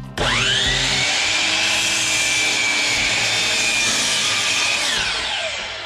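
DeWalt miter saw motor spinning up with a quickly rising whine, running steadily through a cut in a wooden board, then spinning down with a falling whine near the end.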